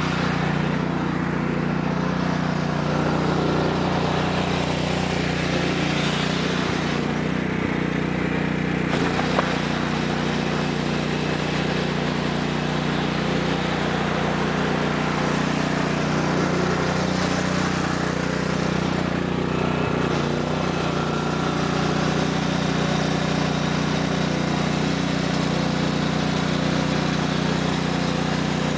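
A 1993 Sears Craftsman lawn tractor's 14 hp Kohler OHV engine running at a steady, even speed as the tractor is driven around on ice.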